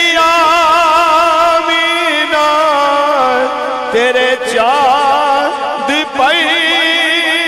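Male voice singing a naat through a microphone and PA, drawn out in long, ornamented held notes with a strong wavering vibrato and slides between pitches.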